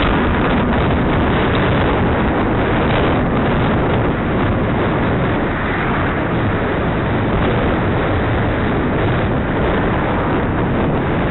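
Steady rushing wind noise on the microphone of a camera carried on a moving bicycle, loud throughout.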